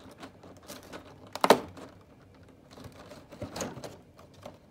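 Hands prying open a numbered door of a cardboard advent calendar: scattered scratches and clicks of card, with a louder crackle about one and a half seconds in and another cluster a couple of seconds later.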